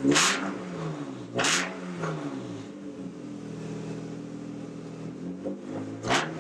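BMW E36 328i's inline-six engine idling with three quick throttle blips, one right at the start, one about a second and a half in, and one near the end, each revving up and dropping straight back to idle.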